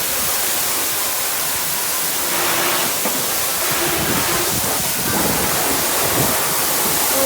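Steady rushing hiss of water spraying from a fire hose, with faint voices underneath.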